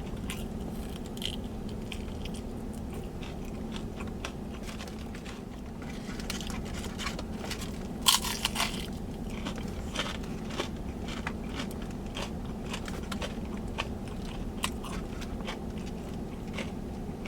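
Close-up chewing and biting of crunchy fried food, with steady crackling crunches and a louder burst of crunching about eight seconds in. A steady low hum runs underneath.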